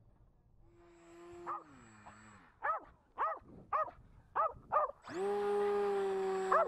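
A dog barking excitedly in short, repeated barks. About five seconds in, the RC warbird's electric motor and propeller start suddenly into a steady whine, with another bark over it near the end.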